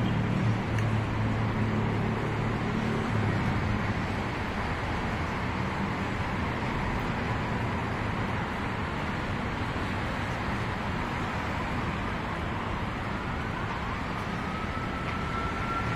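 Steady city road-traffic noise, an even rumble and hiss of distant vehicles. A faint high whine rises in and holds near the end.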